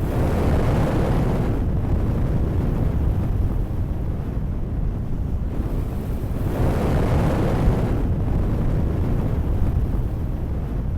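Added sound effect of a deep, continuous rumble with a rushing, wind-like noise over it, swelling twice, near the start and again about two-thirds of the way through.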